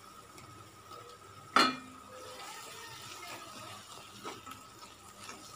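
A spatula knocks once against the pan with a sharp clank about a second and a half in, then stirs and scrapes through thick frying masala in the pan, with a lighter knock near the end.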